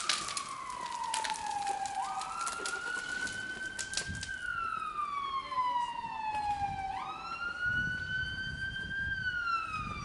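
Emergency-vehicle siren on a slow wail, most likely the fire engine called to the car fire arriving: each cycle jumps up quickly, climbs gently, then slides slowly down, about once every five seconds. Sharp cracks and pops from the burning car come during the first few seconds.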